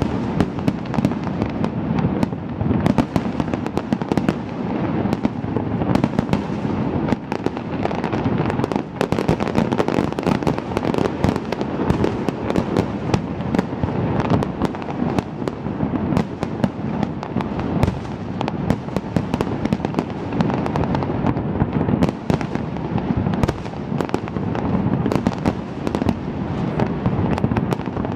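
Fireworks display: a dense, unbroken barrage of bangs and crackling, with no let-up.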